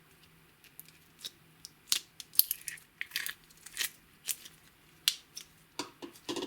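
Clear slime being mixed, giving an irregular run of sticky clicks and pops from about a second in, with a fuller squelch near the end.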